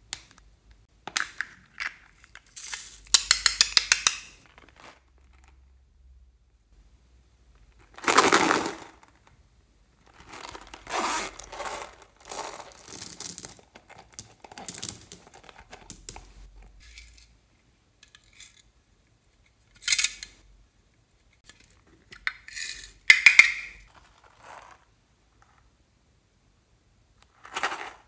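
Hands handling small plastic and silicone cases over a glass bowl of foam beads: scattered clicks, rattles and rustles in separate bursts. One fast run of clicks comes a few seconds in, and a fuller rustle about a third of the way through.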